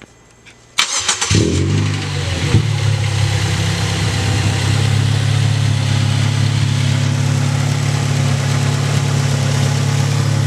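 2006 Mazda 6 engine fitted with a new CorkSport short ram intake, cranked by the starter and catching about a second in. It flares up briefly, then settles to a steady idle.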